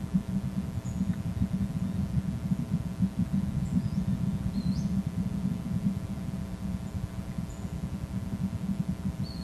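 Steady low rumble with a faint electrical hum, over which a few faint short, high bird chirps and rising whistled notes sound, a couple near the middle and one near the end.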